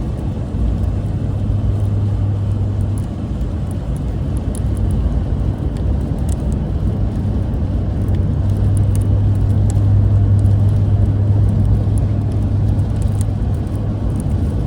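Pickup truck driving at highway speed, heard from inside the cab: a steady low drone of engine and tyres with faint scattered ticks, growing a little louder past the middle.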